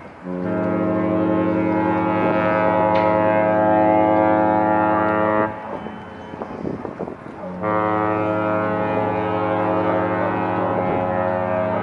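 Cruise liner's ship horn sounding two long, deep blasts, each about five seconds of steady tone; the second starts about two seconds after the first ends.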